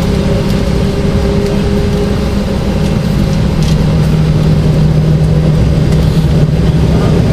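McDonnell Douglas MD-90 jet engines running at taxi power, heard inside the cabin as a steady low drone with a hum, growing slightly louder.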